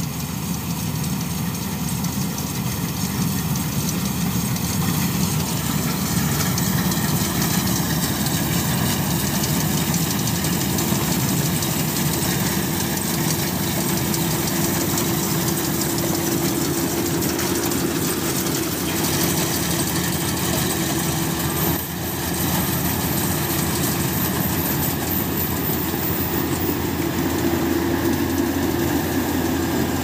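FMWorld combine harvester running as it cuts and threshes rice: a steady engine drone with a constant hum.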